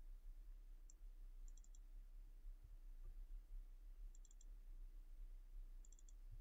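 Faint computer keyboard and mouse clicks: a single click, then three quick clusters of three or four clicks, over a low steady hum.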